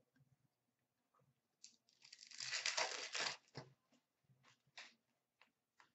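A hockey card pack wrapper is torn open: a burst of tearing and crinkling about two seconds in that lasts over a second, with a few short crinkles before and after.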